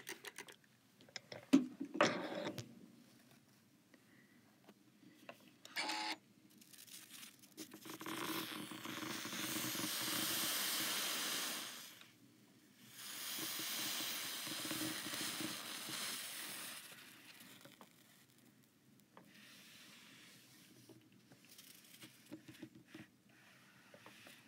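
A spray bottle squirts water onto the fabric, then steam hisses in two long stretches of about four seconds as the hot Oliso iron is pressed onto the dampened fabric.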